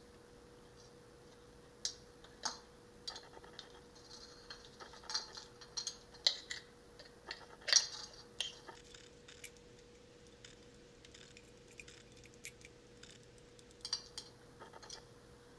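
Potassium alum crystals tipped out of a glass beaker onto paper: scattered light clicks and taps of crystal and glass, most of them in the first half, with a few more near the end. A faint steady hum underneath.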